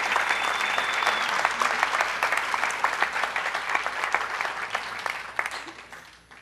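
Audience applauding, a dense patter of hand claps that dies away over the last two seconds.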